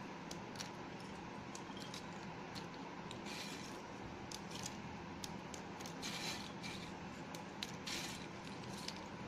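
Broken pieces of Parle-G biscuit being stirred and dropped by hand in a glass bowl: faint scattered crisp crackles and scrapes, with a few louder rustles about three, six and eight seconds in.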